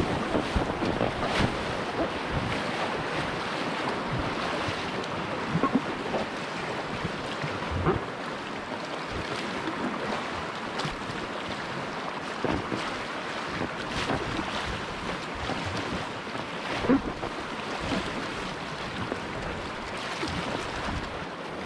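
Whitewater rapids rushing around an inflatable packraft, with short splashes every few seconds as the paddle strokes cut the water.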